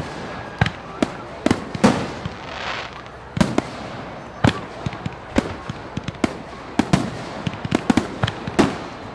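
Fireworks show: a steady run of sharp bangs at irregular intervals, one to three a second, over a continuous rumbling background, with a burst of crackling hiss a little under three seconds in.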